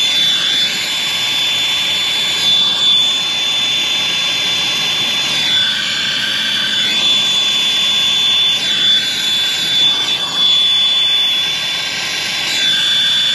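Hose-fed hand torch burning steadily with a hissing rush of flame as it heats a copper line-set joint at the liquid-line filter drier for soldering, with a thin steady high whistle running through it.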